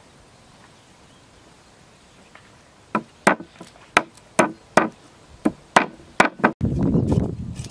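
Cleaver chopping raw fish on a wooden chopping block: about nine sharp chops in three seconds, after a quiet start. Near the end, about a second of low rumbling noise.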